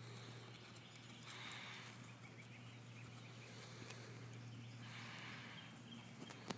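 Faint sounds of a pony moving on grass: soft hoofbeats over a steady low hum, with two short rushes of hiss, the first a little over a second in and the second about five seconds in.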